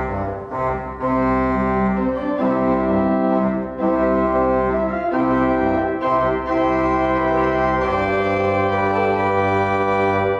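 Church pipe organ playing the introduction to a hymn: full sustained chords over a deep pedal bass, the chords changing every second or so.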